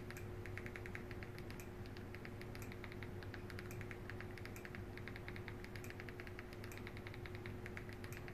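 Quick runs of small clicks, several a second, as the highlight is stepped key by key across a Fire TV on-screen keyboard with the remote. A steady low hum runs underneath.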